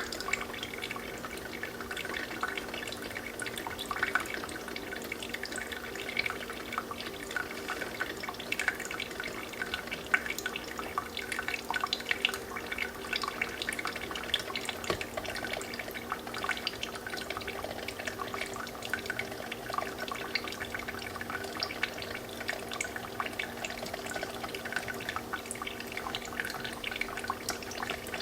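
Brewing coffee trickling and dripping steadily into a glass pot, a dense patter of small drips over a continuous trickle, with a low steady hum underneath.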